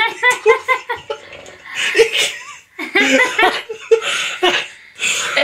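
Hearty laughter: a quick run of ha-ha-ha pulses at first, then several more bursts of laughing with short pauses between.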